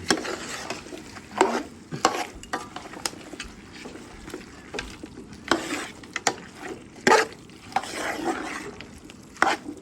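Stir-frying: vegetables sizzling in a hot pan while a spatula stirs and scrapes through them in irregular strokes.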